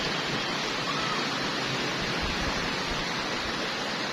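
Heavy rain falling, a steady hiss with no breaks.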